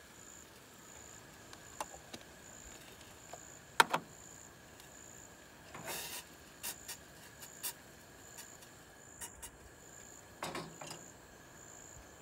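Occasional clinks and knocks of a metal saucepan and cooking utensils being handled on a two-burner camp stove, the loudest a sharp clank about four seconds in. Under it is a faint, steady background with a high, evenly repeating chirp.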